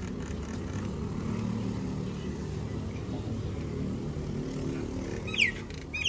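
Low, steady drone of an engine running in the background. Near the end come a couple of sharp, falling bird chirps.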